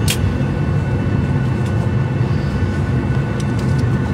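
Airliner cabin noise on the ground after landing: a steady low rumble from the running jet engines and air system, with a faint steady high whine. There is one short click right at the start.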